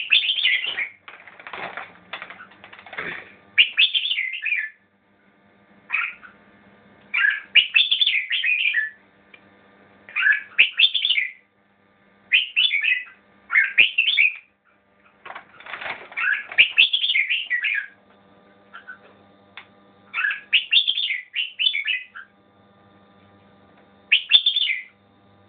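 Red-whiskered bulbul singing: short phrases of quick notes, each about a second long, repeated every two to three seconds.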